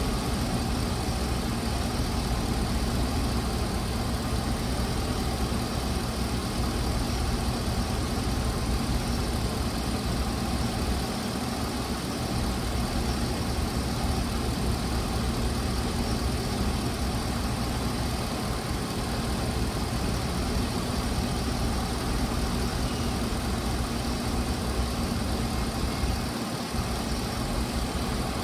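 Engine of a 2012 Blue Bird school bus idling steadily.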